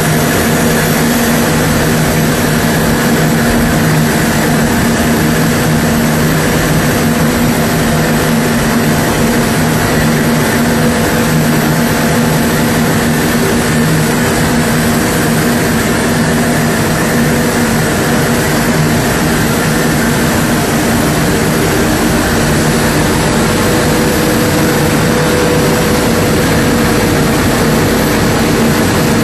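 Single-stage plastic recycling and granulation line running: a loud, steady machine drone with a constant hum under a wash of mechanical noise.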